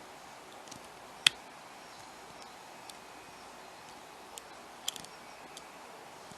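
Faint metallic clicks of a hook pick working the pins inside a pin tumbler challenge lock under light tension, with one sharp click about a second in and a couple more near five seconds.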